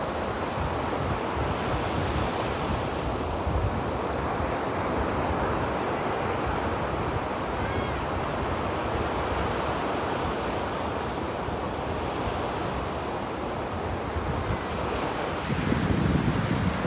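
Ocean waves washing onto a beach: a steady rush of surf, with a louder wave surging in near the end.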